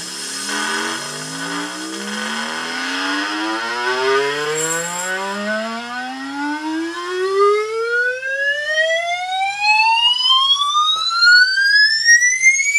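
A test tone played through the Lasonic TRC-919 boombox sweeps steadily upward in pitch, from a low hum to a high whistle, with strong overtones. In the first few seconds a rough crackle sits over it as the volume controls are turned, the scratchy-pot noise the owner points out. It is heard through small laptop speakers, so it sounds thin.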